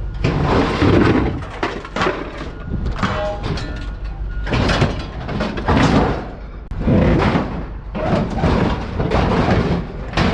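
Scrap metal being dragged and dumped out of a pickup truck bed, with a sheet-metal stove among it: repeated scraping and clanking that swells every second or two.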